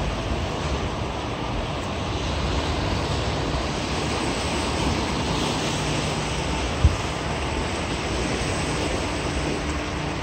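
Steady wind rushing and rumbling on the microphone, mixed with surf on a rocky shore, with one brief thump about seven seconds in.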